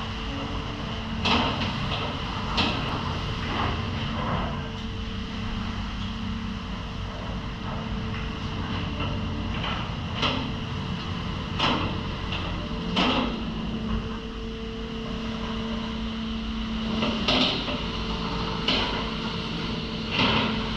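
A boat's engine running with a steady hum. Sharp knocks come in small groups of two or three, about a second apart.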